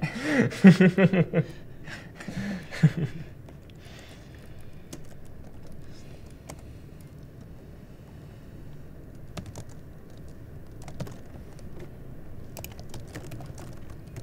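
Laptop keyboards being typed on, with scattered, irregular key clicks. A short burst of voice near the start is the loudest sound.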